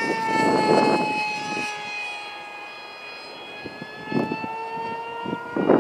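High-pitched whine of a Skyfun RC plane's Turnigy 2836-3700 brushless motor on 3S at full speed, sliding slowly down in pitch and fading as the plane passes and flies away, then growing louder again about four seconds in as it comes back around.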